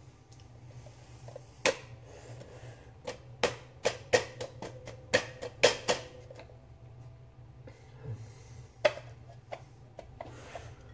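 Irregular sharp clicks and knocks of kitchen utensils and dishes being handled on a counter, most of them in the first half, over a steady low hum.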